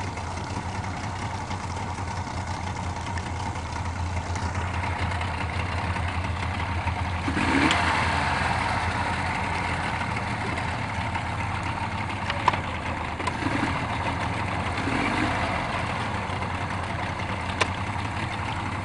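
Yamaha outboard motor idling steadily, with a couple of brief sharp clicks in the second half. This engine has a fault that makes it give an abrupt chirp and stall at idle.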